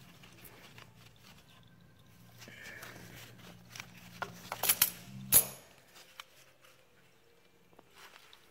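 A strap-type oil filter wrench working a motorcycle's oil filter loose: small clicks and rubbing, then a cluster of sharp metallic clacks about five seconds in, the loudest being a single clack. A low steady hum sits underneath and stops about five and a half seconds in.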